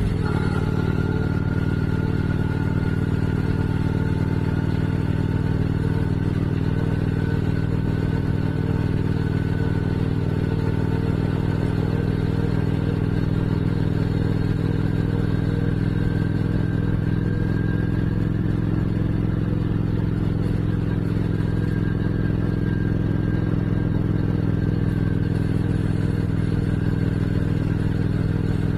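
Motorcycle engine running steadily at cruising speed, heard from cameras mounted on the bike, its exhaust note holding an even pitch.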